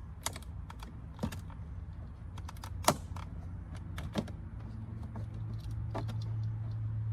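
Several sharp clicks and snaps of a pry tool and plastic trim clips as a truck's door panel is pried loose, the loudest about three seconds in, over a steady low hum.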